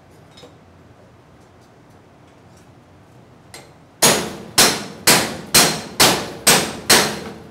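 Seven quick hammer blows on a chisel, about two a second, each a sharp metallic clang with a short ring, starting about four seconds in. The chisel is shaving the top layer off an aluminium weld bead to check the weld for pores.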